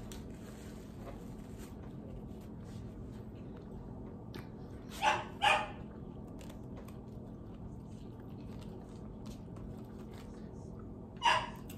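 A dog barking: two short barks about half a second apart, then a single bark near the end, over a steady low hum.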